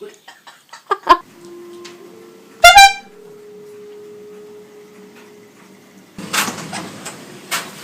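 A handheld air horn gives one short, loud blast about three seconds in, the loudest sound here. A short sharp sound comes about a second in, and a steady hiss starts about six seconds in.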